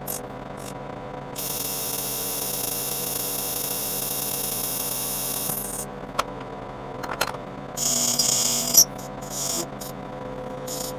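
Monarch engine lathe running with a steady hum while a tool cuts a 1045 steel shaft on a long turning pass, with stretches of high hiss from the cut and a few sharp clicks about six to seven seconds in.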